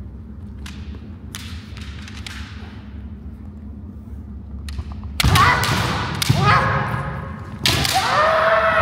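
Kendo sparring with bamboo shinai: a few light shinai taps, then from about five seconds in, loud kiai shouts with stamping footwork and shinai strikes, twice, ringing in a large gymnasium.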